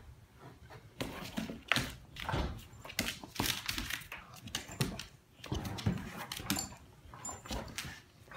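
A Brittany dog play-fighting with a cat on an upholstered armchair: a run of short, uneven scuffles and soft dog noises.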